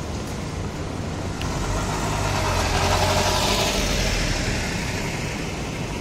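A van driving past close by, its engine and tyre noise rising to loudest about halfway through, then fading.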